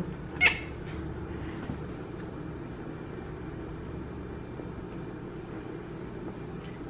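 Steady low room hum with faint constant tones, and one short, sharp sound about half a second in.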